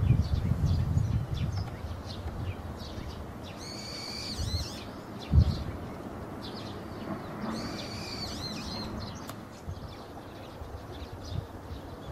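Birds calling outdoors: scattered short high chirps, with two longer pitched calls about four and seven seconds in. A single low thump sounds near the middle, and a low rumble runs through the first second or two.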